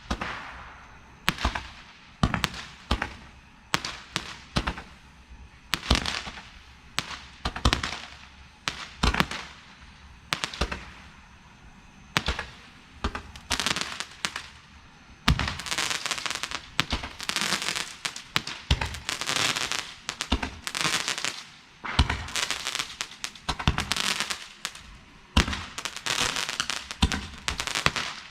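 A rack of Roman candles firing: sharp pops of balls launching, one after another, about once or twice a second. From about halfway the shots come thick and overlapping, with crackling between them, as several candles fire at once.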